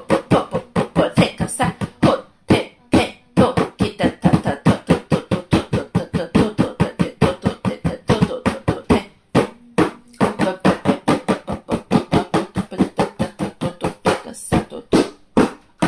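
A person praying in tongues: a fast, rhythmic stream of repeated nonsense syllables, several a second, broken by a few short pauses.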